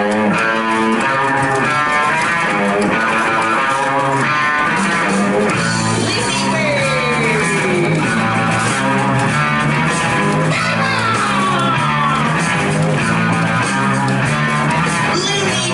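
Upbeat guitar-led rock music with a bouncing bass line, and long sliding notes that fall in pitch about a third of the way in, again past the middle, and once more near the end.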